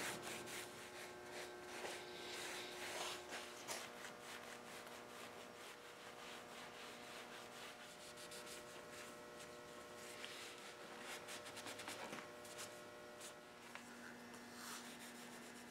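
Faint rag rubbing and patting on a leather chair seat as black dye stain is dabbed onto worn spots, with small scattered clicks. A faint steady hum sits underneath.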